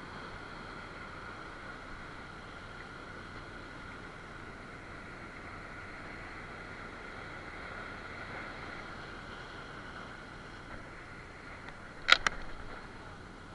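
Sea surf washing over rocks in a steady rush. Near the end come two sharp, loud clicks in quick succession.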